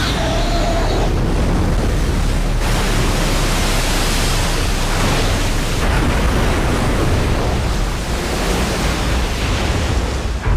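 Loud, steady rushing roar of an airliner coming down in an emergency after the brace call. The noise shifts abruptly a couple of times, about two and a half and six seconds in.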